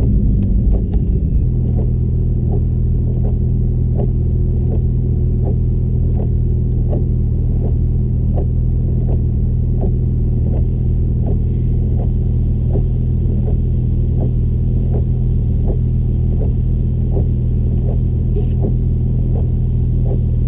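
Porsche engine dropping back from a rev to a steady idle, with a regular pulse about twice a second. The title puts it down to misfires.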